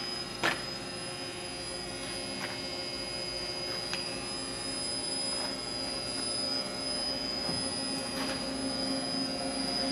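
Bridgeport CNC vertical milling machine running under power: a steady mechanical hum with a high, even whine, and a few faint clicks.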